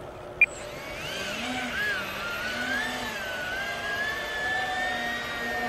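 A brief sharp click, then the twin electric motors and rotors of an E-flite V-22 Osprey RC tiltrotor model spinning up. Their whine wavers in pitch as the throttle is worked, then settles into a steady high whine as the model powers up for takeoff.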